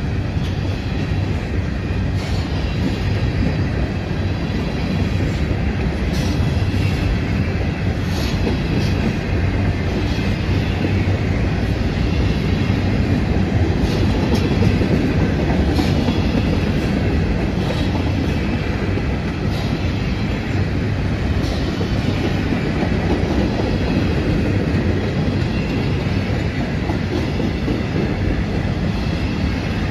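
Freight train of covered hopper cars rolling past: a steady rumble of steel wheels on rail, with scattered clicks and knocks from the wheels and cars.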